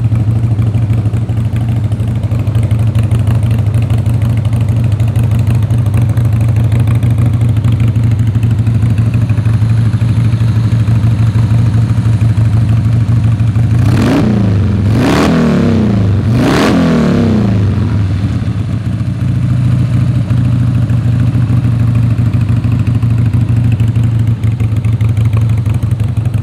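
1999 Harley-Davidson Sportster XL1200's air-cooled Evolution V-twin idling steadily, with three quick throttle blips a little past the middle that rise and fall in pitch before it settles back to idle.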